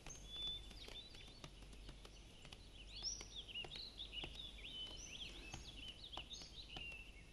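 Small birds chirping and twittering, quietly, in quick rising and falling notes that grow busier from about three seconds in, with faint scattered ticks underneath.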